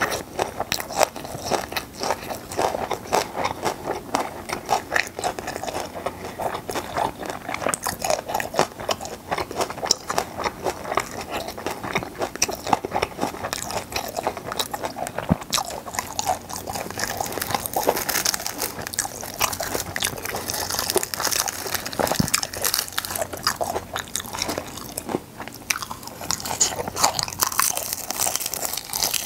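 Close-miked chewing and biting of gwamegi, chewy semi-dried fish strips: a continuous run of wet smacks and small clicks from the mouth.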